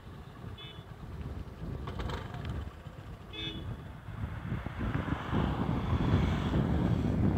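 Road traffic with two short horn toots, about half a second in and about three and a half seconds in, then a car driving past that grows louder toward the end.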